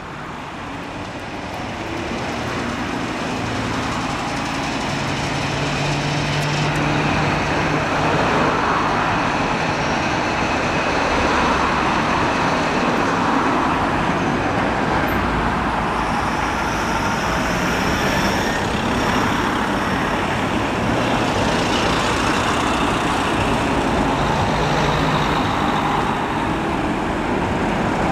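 Steady road traffic noise, swelling over the first few seconds and then holding level.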